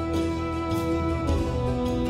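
Instrumental background music with held notes that change to new ones about a second and a half in.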